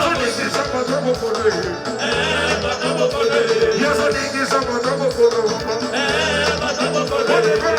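Upbeat Congolese soukous-style band music with a steady, repeating bass pattern and singing.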